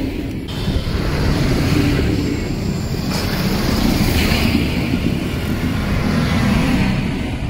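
Diesel engines of a line of big farm tractors running as they drive past in close procession, a steady, heavy engine drone. The recording is sped up to double speed.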